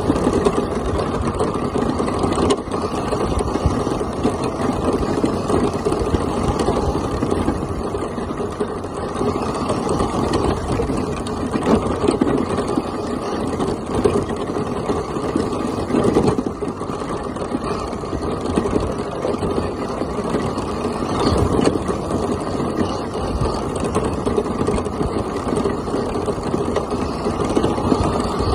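Traxxas Stampede electric RC monster truck driving steadily over gravel: its motor and drivetrain running under the crunch of its tyres on loose stones, heard up close from a camera on the truck itself.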